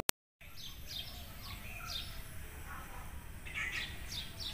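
Small birds chirping in short, falling chirps scattered through, with a cluster of several about three and a half seconds in, over a steady low background rumble. A click and a split second of silence right at the start.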